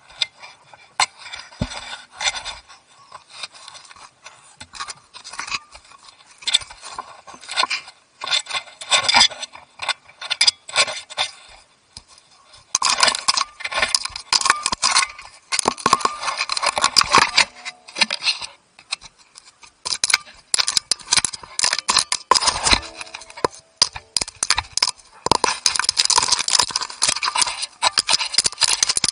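A meerkat digging right at the microphone: its claws scrape the ground and grit crackles and patters against the camera. The digging comes in spells with short pauses and gets heavier about halfway through.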